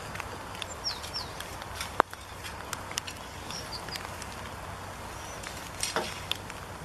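Outdoor ambience of a goat pen: a steady low hiss with scattered clicks and knocks, the loudest a single sharp knock about two seconds in, and a few short high chirps from small birds.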